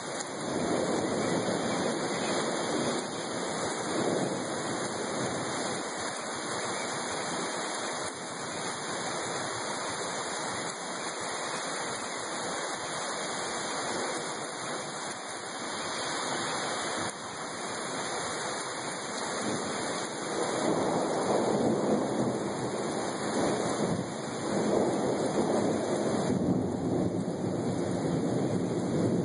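Heavy rain falling steadily in a rainstorm, a constant hiss that grows louder about two-thirds of the way through.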